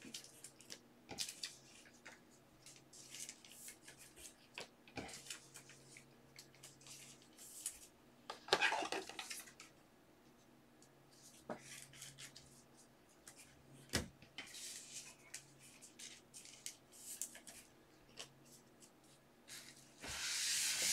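Trading cards being handled in plastic sleeves and rigid top loaders: soft plastic rustles and small clicks, with a louder rustle about eight seconds in and a sharp click near the middle. Near the end, a louder rubbing as a cloth wipes the tabletop.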